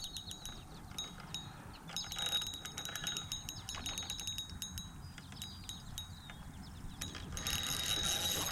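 Shimano Nexave 2500 spinning reel being cranked to retrieve the lure, its gears and handle giving a quick run of fine ticks.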